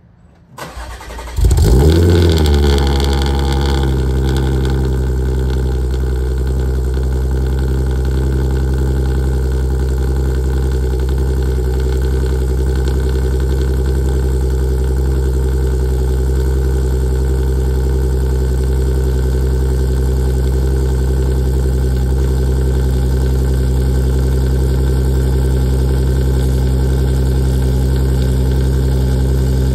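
2016 Audi S4's supercharged 3.0-litre V6 cold-starting through long-tube headers, an 034 X-pipe and the stock rear mufflers. It cranks and catches about half a second in, flares up in revs around two seconds in, then settles into a steady idle heard at the tailpipes.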